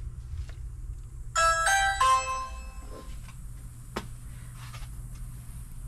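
Video doorbell chiming once its button is pressed: a short chime of a few clear notes starting about a second and a half in, the last note fading out.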